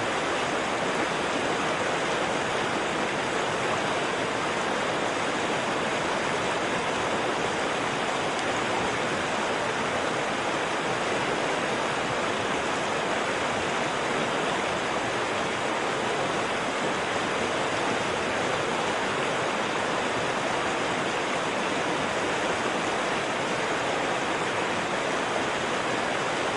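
Mountain stream tumbling over a rocky bed in a small waterfall, a steady, unbroken rush of water.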